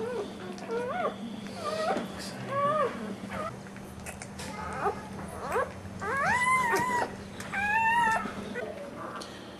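Newborn American Staffordshire Terrier puppies squeaking and whining as they root for their mother's teats. It is a string of short, high calls that rise and fall, with a longer whine about six seconds in and another near the end.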